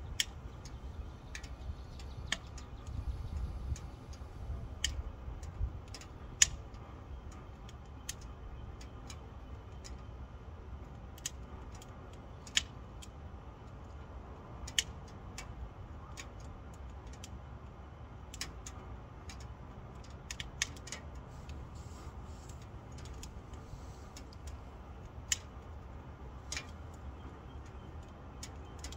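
Wood fire burning in a stainless steel tent stove on its first burn: sparse, sharp, irregular ticks and pops, about one every second or two, over a low rumble that is stronger in the first few seconds.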